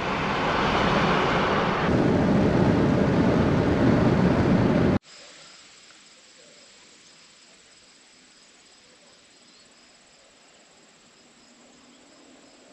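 Steady road and wind noise from the Toyota Tacoma driving along a highway, growing louder about two seconds in, then cut off abruptly about five seconds in. Faint outdoor ambience with a thin, steady high whine follows.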